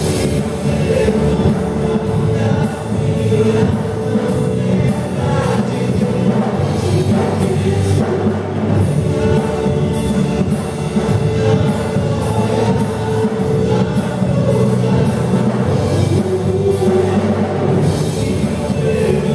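Live worship band playing a Portuguese-language praise song: a group of singers over drums with regular cymbal hits.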